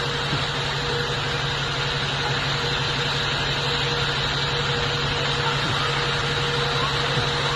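Steady electrical buzzing hum with a hiss from short-circuiting, burning power lines on utility poles, holding constant with no bangs.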